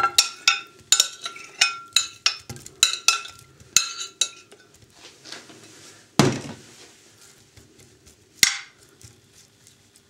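Glass bowl clinking and knocking against a serving dish as fried potatoes are tipped and scraped out of it: a quick run of sharp, ringing clinks for about four seconds, then a duller knock about six seconds in and one last clink near the end.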